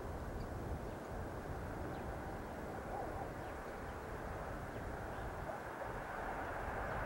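Distant approaching passenger train hauled by an EU160 electric locomotive: a steady low rumble that grows slightly louder near the end, with a few faint bird chirps.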